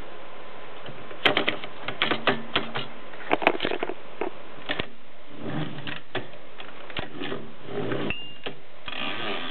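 1923 Adler 7 typewriter being typed on: a quick run of sharp key-and-typebar clacks, then softer, irregular mechanical clatter, with a short high ring about eight seconds in.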